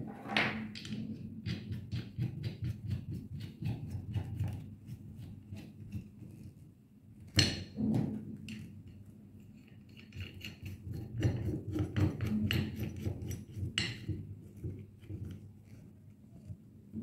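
Aluminium stretcher plates, a metal flange and bolts being handled and fitted on a rubber bellow assembly: scattered clicks, clinks and knocks of metal parts against each other and the tabletop. The loudest knocks come about seven and a half seconds in and again near the end.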